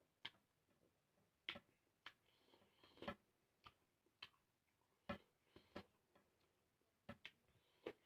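Close-up eating sounds: irregular sharp clicks and smacks of chewing, about a dozen in eight seconds, with faint mouth noise between them.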